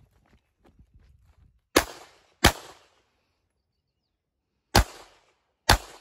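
Four pistol shots in two pairs, each a sharp crack with a short ringing tail. The pairs come about two seconds apart, and the shots within each pair are under a second apart.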